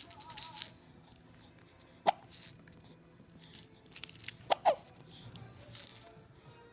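Two-month-old baby hiccuping: short, sharp catches of breath with a little squeak. The loudest comes about two seconds in, and a close pair follows about four and a half seconds in.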